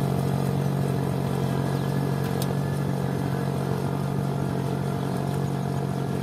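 Engine of a walk-behind rice transplanter running at a steady hum while the machine plants rows of rice seedlings in the flooded paddy.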